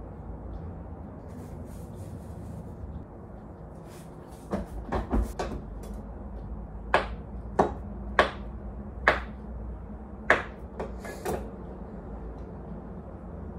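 Kitchen knife slicing a banana and striking a wooden cutting board: a run of sharp knocks about half a second to a second apart, starting about four seconds in and stopping near the end, over a steady low background hum.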